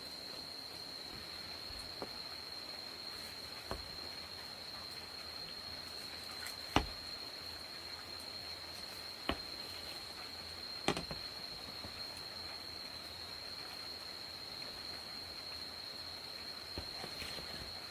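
Crickets calling in one steady, unbroken high tone over a faint even hiss. A few sharp knocks break in, the loudest about 7 and 11 seconds in.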